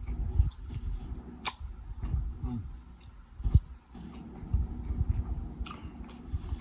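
Close-miked chewing and mouth sounds of a person eating a seafood boil: irregular soft low thuds with a few sharp clicks, one about one and a half seconds in and two near the end.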